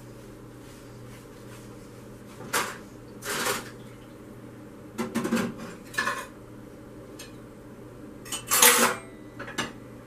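Dishes and plates clinking and clattering as they are picked up and handled for loading into a dishwasher, in several separate bursts with the loudest near the end, over a faint steady low hum.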